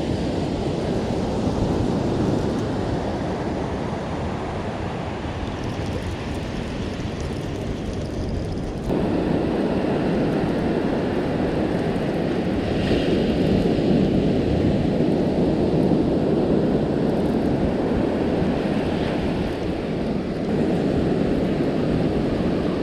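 Steady wind rumbling on the microphone over the wash of surf breaking on the beach; the noise jumps in level about nine seconds in.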